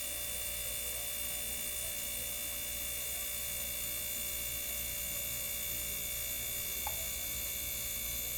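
Steady mechanical hum that does not change, with one faint click about seven seconds in.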